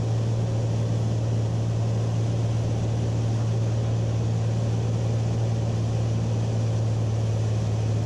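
1952 Beechcraft Bonanza's flat-six piston engine and propeller droning steadily in cruise-descent, heard from inside the cabin with a constant low hum under airflow noise.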